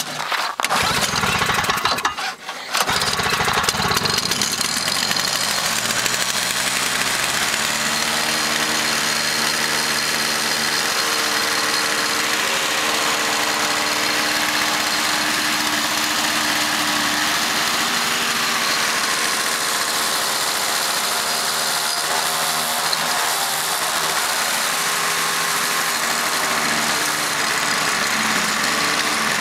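Toro CCR 3650 snowblower's 141 cc two-stroke engine cold-starting on full choke at about 15°F. It is pull-started, catches within the first two seconds, dips briefly, then runs steadily.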